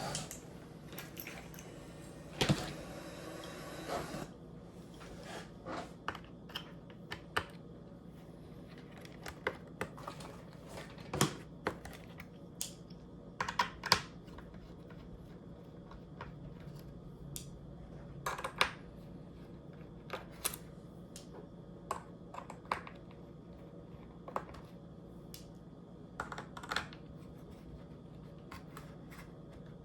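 Irregular light clicks and taps of small repair tools and parts being handled on a MacBook Pro laptop, with a short scraping stretch about two to four seconds in.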